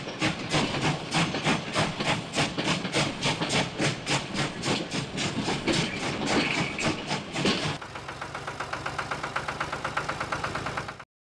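Steam-train chuffing, about four chuffs a second. About eight seconds in it switches abruptly to a small engine puttering at a fast, even rate over a low hum, which cuts off suddenly near the end.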